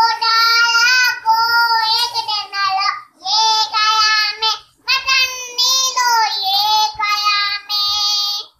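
A young girl singing unaccompanied in long held phrases: three phrases with short breaths between them.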